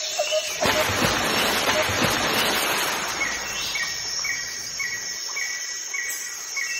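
Outdoor nature ambience: a rushing noise in the first half, then a short high chirp repeated evenly about twice a second.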